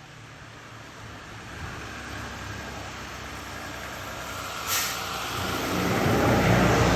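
A motor vehicle's engine and road noise growing steadily louder as it approaches, with a short click about five seconds in.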